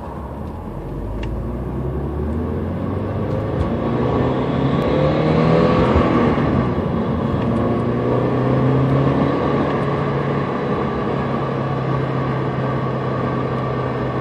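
Supercharged Porsche 968 3.0-litre four-cylinder engine with a D1R supercharger, its revs climbing for about six seconds and the supercharger whine rising with them. The revs then drop back and hold steady.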